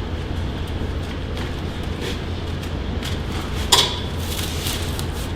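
A single sharp crack about three and a half seconds in, from a chiropractic adjustment, with a few fainter clicks around it. A steady low hum runs underneath.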